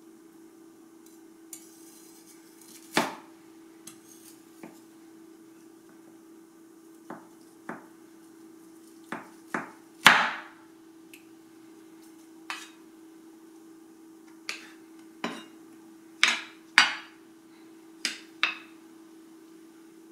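Cleaver knocking on a wooden cutting board, breaking up clumps of frozen leftover rice: about seventeen separate knocks at irregular spacing, some in quick pairs, the loudest about halfway through and near the end. A steady hum runs underneath.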